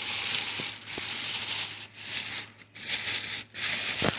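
Plastic packaging bag crinkling and rustling as it is handled and worked open.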